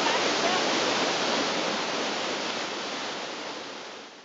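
Steady rush of a large waterfall at Niagara Falls, heard from close below the falling water. It fades out near the end.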